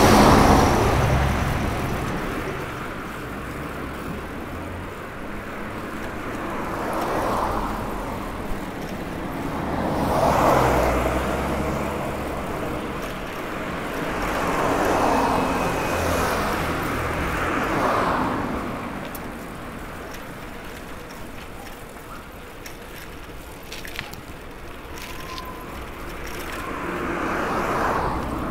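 Road traffic: cars passing one after another, about six in all, each swelling and fading over two or three seconds over a steady background hum.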